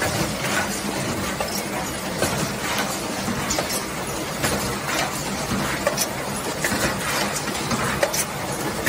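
Rectangular tin can making line running: a steady machine hum under frequent, irregular metallic clinks and clacks of tin cans and tooling on the conveyor and seamer.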